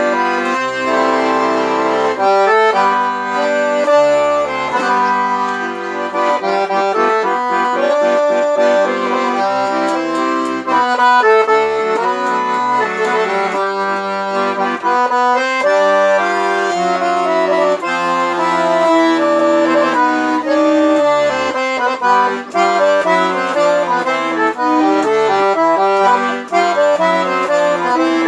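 Accordion (sanfona) playing an instrumental forró melody, with chords and low bass notes under a moving tune.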